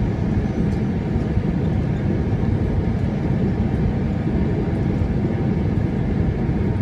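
Steady, loud rumble of an airliner's cabin during its final descent to the runway: engine and airflow noise heard through the fuselage, low-pitched and unchanging.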